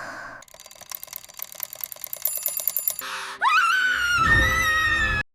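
A bell alarm clock ringing in a rapid clatter for a couple of seconds. Then a loud pitched sound rises and holds over a low rumble, and cuts off suddenly.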